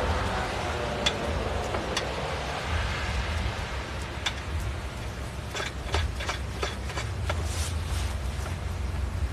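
Wheel and lug nuts being fitted onto a car's hub during a roadside tyre change: scattered sharp metal clicks and clinks, bunched together about two-thirds of the way in, over a steady low rumble.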